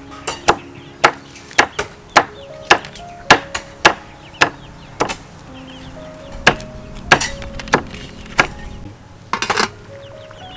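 Scissors snipping through a crisp dried sheet, sharp cuts about twice a second with a short pause midway and a quick run of clicks near the end. Background music with held notes plays underneath.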